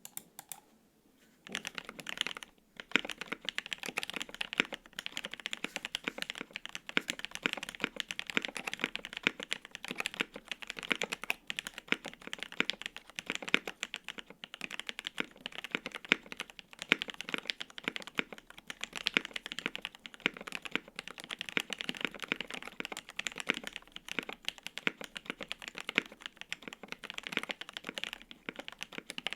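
Continuous fast typing on a custom KBD8X MKII mechanical keyboard: lubed and filmed Alpaca V2 linear switches on an FR-4 plate in a polycarbonate case, with GMK Oblivion double-shot ABS keycaps. A couple of single key clicks come first, and steady typing begins about a second and a half in.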